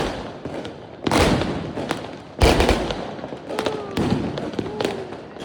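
Fireworks going off: two loud booms, about a second in and at about two and a half seconds, each trailing off in a rumble, with smaller sharp pops in between and after.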